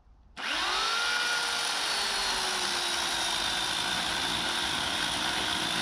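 Portland electric chainsaw starting up about half a second in with a quickly rising whine, then running steadily while cutting into a tree trunk, its pitch sagging slowly under load.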